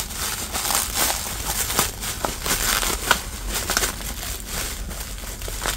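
Thin black plastic bin bag crinkling and crackling as it is pulled and unwrapped by hand from a wrapped item, a dense, continuous run of small crackles.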